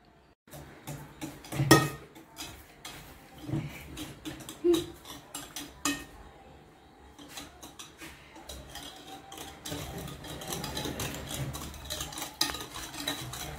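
Wire whisk beating brownie batter in a glass bowl: irregular clinks and scrapes of the metal whisk against the glass. After a short lull about halfway through, the clinking gets busier and louder.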